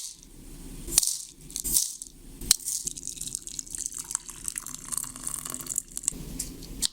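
Crunchy baked granola clusters rattling and clicking irregularly as they are handled and poured.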